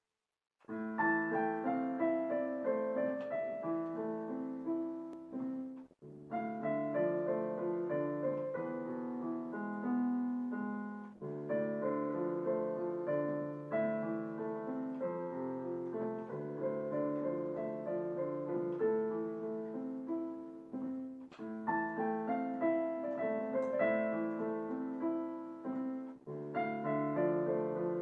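Digital piano playing a melody over chords, starting under a second in, with a brief break between phrases about six seconds in.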